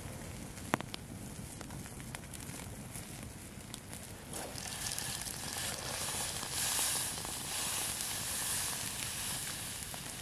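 Wood fire crackling under a boiling pot, with a sharp pop about a second in. From about four seconds in, beer is poured from a can into the boiling pot of vegetables, splashing and fizzing as it foams up.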